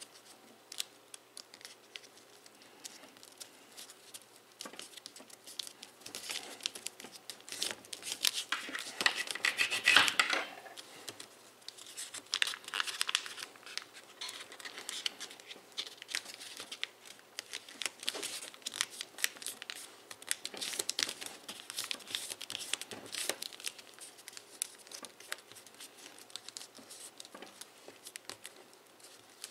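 Foil origami paper crinkling and crackling as it is folded and creased by hand, in an irregular run of small crackles, busiest and loudest about ten seconds in.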